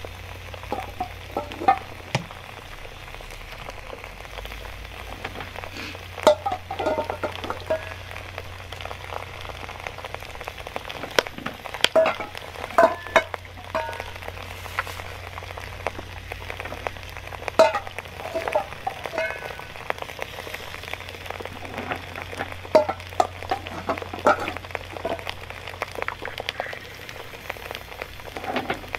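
Smooth heavy stones being set down one after another into a cast-iron cauldron of onions and meat, clacking against each other and the iron in clusters every few seconds, over a steady sizzle of the meat and onions cooking on the fire.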